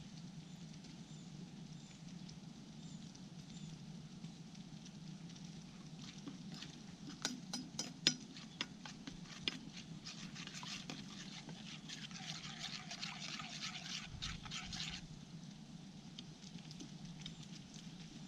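Jaew dipping sauce being mixed with a spoon in a small bowl: a run of light clinks near the middle, then a soft hiss for a few seconds.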